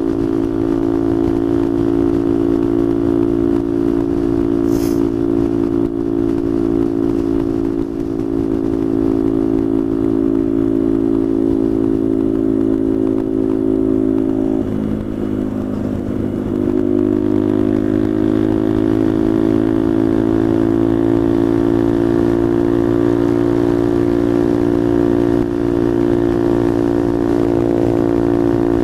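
Small motorcycle engine running steadily at cruising speed. Its note dips and wavers briefly about halfway through, then settles again.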